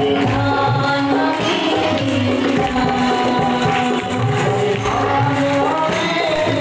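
A woman singing a devotional song (bhajan) into a microphone over a public-address system, with instrumental accompaniment and hand percussion.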